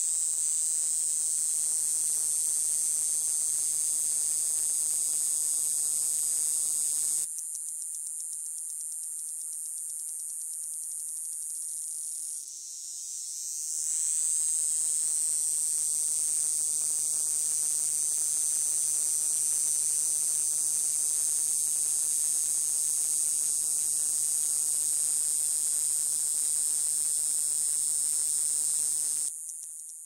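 Desert cicada calling: a loud, steady, high-pitched buzz. About seven seconds in it drops to a quieter, thinner buzz, then swells back up to full strength a few seconds past the middle and holds until it cuts off near the end.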